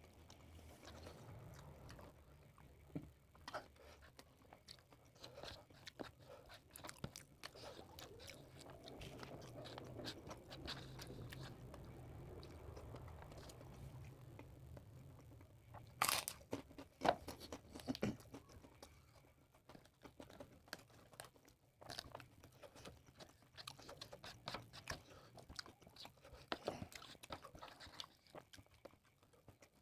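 A person chewing and biting food close to the microphone, with wet chewing and crisp crunches, the sharpest crunches a little past halfway through.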